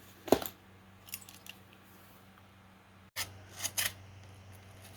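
Knife blade of a small folding multi-tool cutting cardboard, in a few short slicing strokes.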